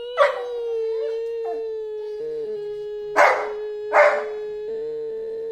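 Labrador retriever howling in reaction to its owner's weeping sounds: one long, steady, drawn-out note, broken by three short, louder, harsher cries, once just after it starts and twice about three to four seconds in.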